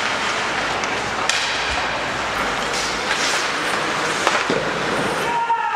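Ice hockey play: skates scraping on the ice over steady rink noise, with sharp clacks of stick on puck about a second in and again near four seconds.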